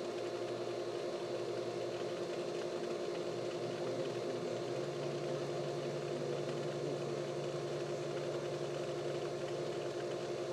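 Steady mechanical hum, with a second, lower hum joining about five seconds in.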